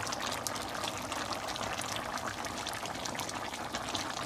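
Goat meat and whole tomatoes sizzling and bubbling in the pan as they are braised down: a steady crackle of many small pops.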